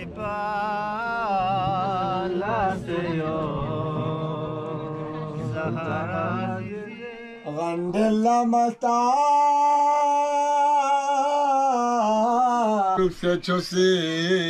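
A solo voice chanting unaccompanied in long held notes with a wavering pitch. From about seven seconds in, the notes become louder and are held longer.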